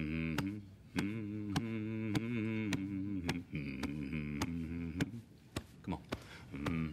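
A man humming a low, wordless chant that rises and falls in pitch, while thumping his chest with his fist about twice a second.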